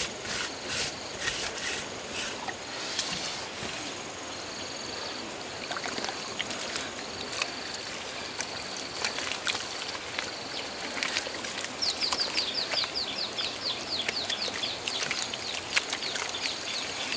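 Wet mud and muddy water being dug, scooped and sloshed by hand, with sharp clicks of a digging stick in the first few seconds. Small wildlife calls behind it: a short high note repeated about once a second, then a fast run of short falling chirps.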